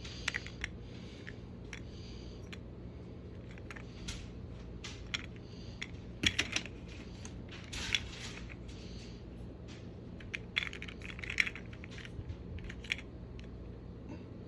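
Light plastic clicks and clatter of a toy train flat car and its loose cargo pieces being handled and turned over, scattered irregularly, with a few louder clatters about six, eight and eleven seconds in, over a steady low hum.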